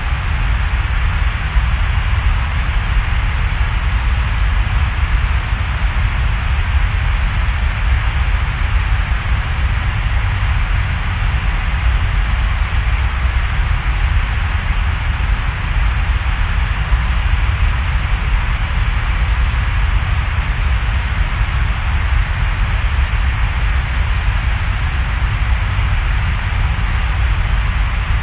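Steady, unchanging rain-like noise ambience, a hiss over a deep rumble, with no pauses or separate sounds.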